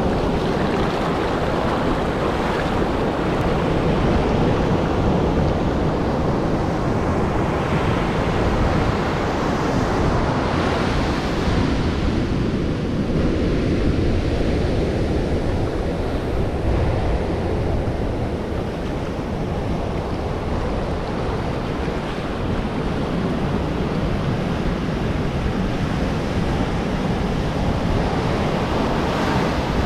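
Pacific Ocean surf breaking and washing up a sandy beach in sheets of foam. It makes a steady rush of water that swells and eases as the waves come in.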